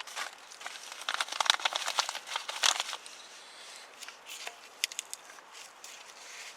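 A crinkly plastic food packet being handled and rustled, in a dense spell of crackling in the first half, then a few scattered crackles.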